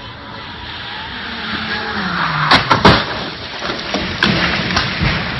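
A car speeds along a wet road, its engine and tyre noise swelling, with the engine note dropping. About two and a half seconds in come several sharp impacts as it crashes into a roadside pole, and a few more knocks follow a second or two later.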